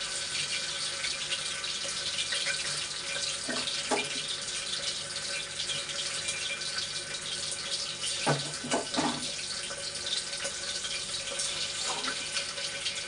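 Oil with ginger-garlic paste sizzling steadily in a pressure cooker on the stove, with a few short knocks of utensils about four seconds in and again around eight to nine seconds.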